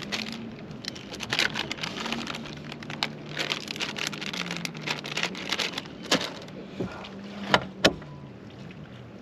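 Rustling and sharp clicks of fishing tackle being handled by hand, with a few louder clicks in the last third, over a low hum that slowly wavers in pitch.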